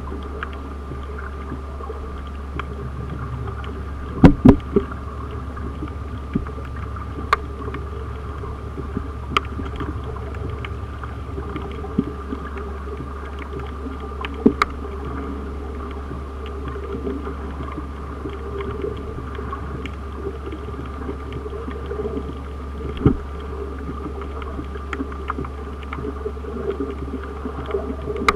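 Underwater ambience on a coral reef: a steady low hum with a faint steady whine, broken by scattered sharp clicks and pops. The loudest clicks come in a quick cluster about four seconds in, with single ones every few seconds after.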